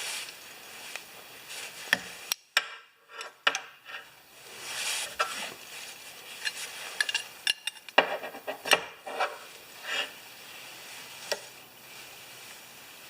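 Light metal clinks, scrapes and rustling from hands working threaded pressure-washer hose fittings and wrenches, with scattered sharp clicks.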